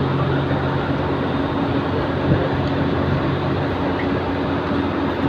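Ferry engines running with a steady mechanical drone while the ship manoeuvres into its berth. A deeper hum drops out about two-thirds of the way through.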